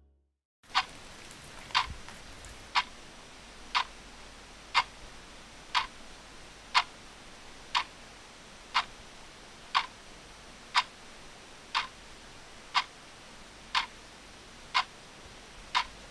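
Clock ticking, one sharp tick a second, starting about a second in, over a faint steady hiss.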